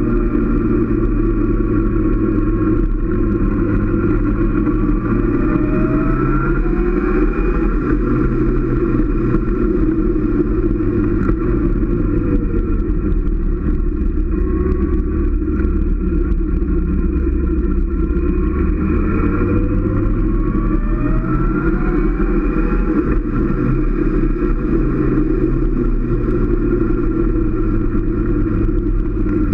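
Motorcycle engine running under way on a winding road, its pitch rising and falling several times with throttle and gear changes, over a steady low rush of noise.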